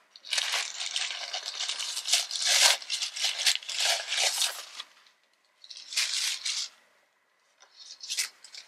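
Tissue paper crinkling and rustling as it is pulled out of the inside of a canvas handbag. There is a long run of crinkling for about five seconds, then two shorter bursts.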